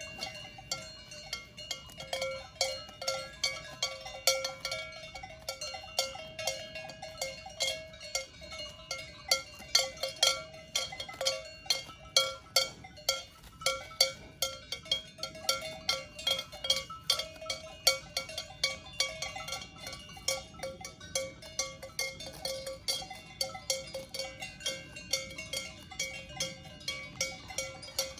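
Several cowbells worn by grazing cows, clanking irregularly and ringing on over one another as the cows move their heads. The strikes come thickest and loudest in the middle stretch.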